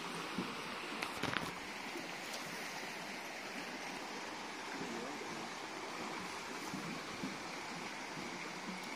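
Steady rushing background noise, with a few light clicks about a second in.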